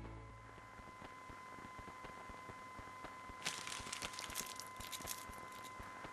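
Faint crackling and rustling of hands handling something crumpled, starting about halfway through, over a faint steady high tone.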